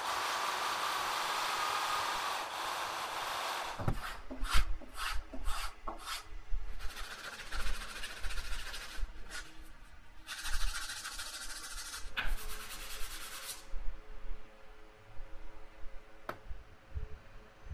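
An electric drill boring into a wooden knife-handle block runs steadily for about the first four seconds. It gives way to hand sanding: small metal handle fittings, a black steel piece and then a brass bolster, rubbed back and forth on abrasive paper in repeated scraping strokes that grow quieter near the end.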